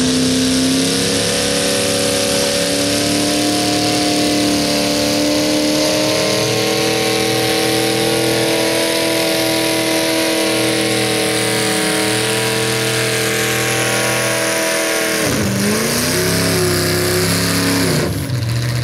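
Garden pulling tractor's engine running at full throttle while dragging a weight-transfer sled. Its note holds steady, then drops sharply about fifteen seconds in as the engine bogs under the load, picks up briefly, and drops again near the end.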